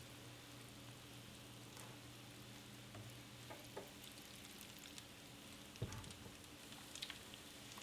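Small pieces of pastry dough frying in oil heated to 170 °C (340 °F), a faint, steady sizzle. A slotted spoon stirs them, making a few light clicks, and there is one soft thump about six seconds in.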